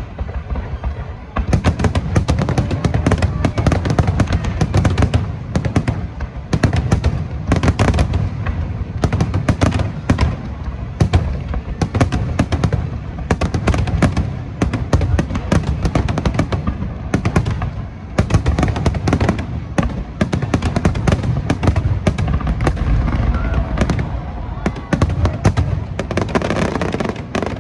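Aerial fireworks shells bursting in a dense, continuous barrage of booms and crackles. The barrage stops sharply at the end.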